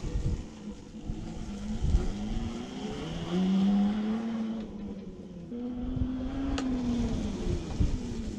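The 800-watt, 36-volt electric motor of a converted Cruzin Cooler ride-on cooler whines under load. Its pitch rises as it speeds up and falls as it slows, twice, over a low rumble of small wheels on concrete.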